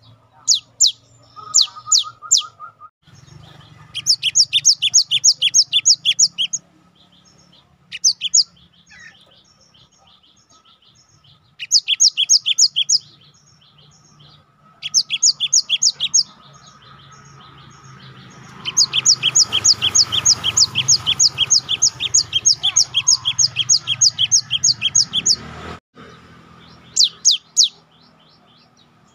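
Cinereous tit (gelatik batu) singing in repeated bursts of quick, high, sharp notes with short pauses between, the longest run lasting about six seconds after the middle.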